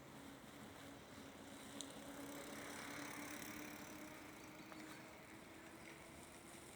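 Faint, distant motor-vehicle hum: a low steady tone under a soft wash of noise that swells a couple of seconds in, then eases.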